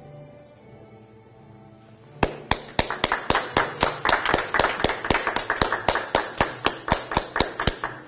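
Hand clapping close to the microphone, starting about two seconds in: steady, sharp claps at about three to four a second, over soft background music.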